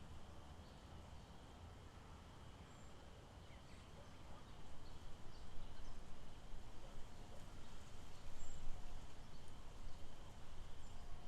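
Outdoor lakeside ambience: a steady background hiss with a few faint, scattered bird chirps. A low, fluctuating rumble grows louder about four seconds in.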